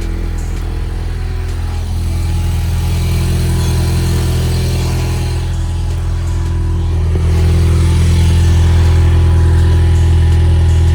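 Ford Mustang EcoBoost's turbocharged 2.3-litre four-cylinder running steadily through a newly fitted MBRP aftermarket exhaust, just after start-up. It gets louder in two steps, about two seconds in and again past the middle.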